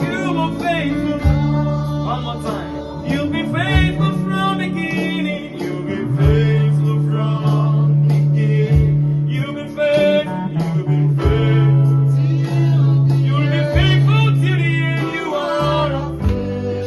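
Worship song with a singing voice over guitar accompaniment and sustained bass notes that change every second or two.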